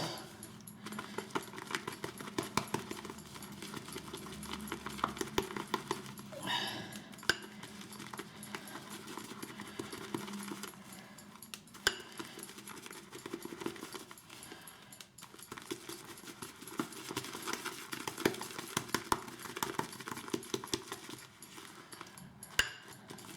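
Horsehair shaving brush whipping shaving soap into lather in a bowl: a fast, steady run of wet clicking and swishing, with a few louder knocks against the bowl.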